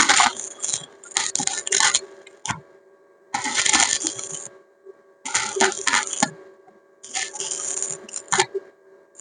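Arc welding crackling in short bursts of about a second each, stopping and starting about five times, over a steady low hum.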